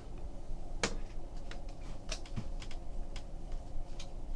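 Trading cards handled and flipped through one by one: an irregular scatter of light clicks and snaps, the sharpest about a second in, over a steady low hum.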